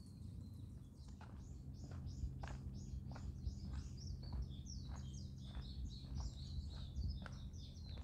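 A small songbird calling in a quick series of short, down-slurred chirps, starting about a second in. Footsteps on a forest path fall about every two-thirds of a second, over a low steady hum.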